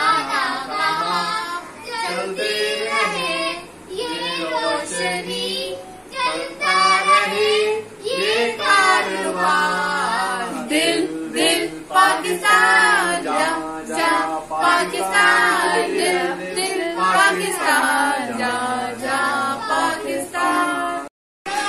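A group of children singing together, with a woman's voice among them. The singing stops for a moment just before the end.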